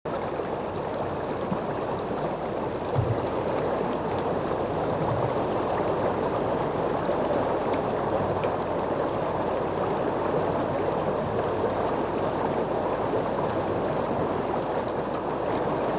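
Shallow river water running steadily, with a brief low thump about three seconds in.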